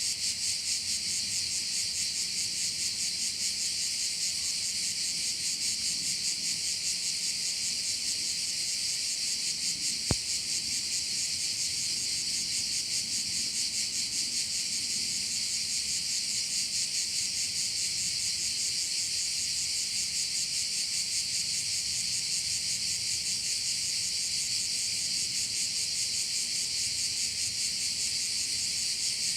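Dense, unbroken chorus of crickets: a high, rapidly pulsing trill that holds steady throughout. A single sharp click comes about ten seconds in.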